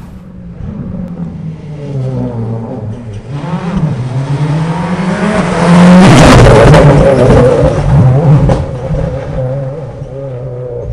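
Rally car passing at speed on a stage: the engine note climbs and drops several times as it comes near under hard acceleration. It is loudest as the car goes by close, about six seconds in, and then fades away.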